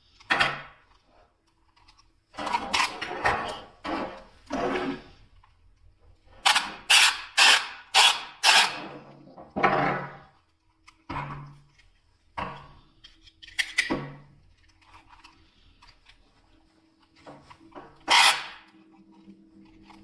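Hard plastic clicks and knocks from spider-wrap security tags being handled and their wire cables stretched, coming in scattered bursts, with a run of five sharp clacks about half a second apart near the middle.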